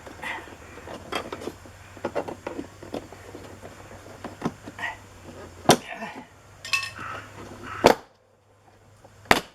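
Hand-work clatter: light clicking and metallic tapping of tools and parts being handled, with a few sharp, louder knocks near the middle and end. A low steady hum underneath stops about eight seconds in.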